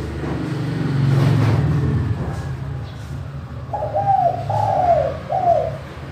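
Spotted dove (tekukur) cooing its three-note call, each note falling at its end, starting a little past halfway, over a low steady rumble that swells in the first two seconds.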